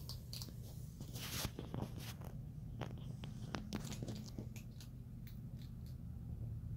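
A young striped skunk crunching food, an irregular run of crisp clicks and crunches that thins out near the end, over a steady low hum.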